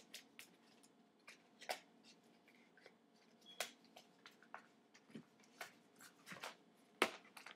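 Paper cards and small packets being handled: scattered light rustles and taps, with a sharper tap near the end.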